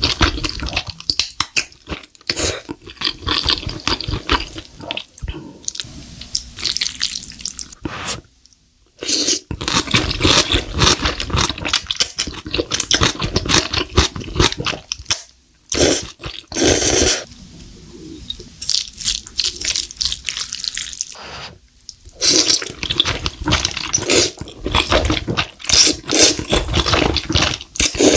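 Close-miked mukbang eating sounds: wet chewing and slurping with crackly bites, in a run of short clips separated by abrupt cuts.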